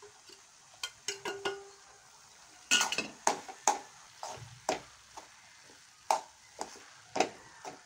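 Metal spoon stirring thick grated-carrot halwa in an aluminium pan, with a few light clicks at first, then a series of sharp scrapes and clinks against the pan, roughly one or two a second, from about three seconds in.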